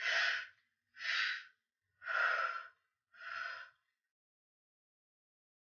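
A woman breathing hard through the effort of squat pulses: four short, sharp breaths about a second apart, the last one fainter, then silence for the last two seconds.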